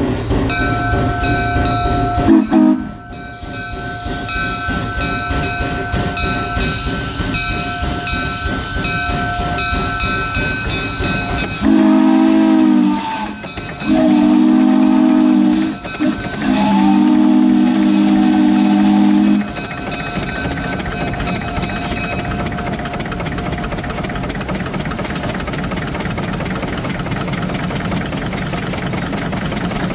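Shay No. 4 geared steam locomotive under way with a steady hiss and rumble. Its steam whistle is blown three times about halfway through, and the third blast is the longest.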